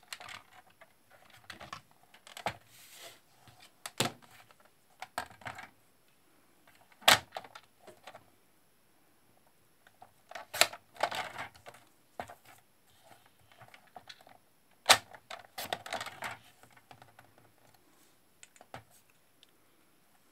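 Paper trimmer being handled and used to cut a strip of cardstock. Its plastic parts give sharp separate clicks and knocks, and the blade scrapes along the track in short slides about halfway through and again about three-quarters through.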